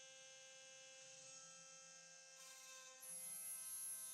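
Desktop PCB CNC milling machine running with a steady electric hum, its spindle doing contour milling of a circuit board. About three seconds in, a high whine comes in and it gets louder.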